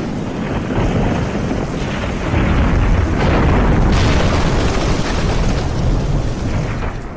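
Building collapsing in an earthquake: a loud, continuous rumbling roar with crashing debris. It grows louder about two seconds in and cuts off abruptly at the end.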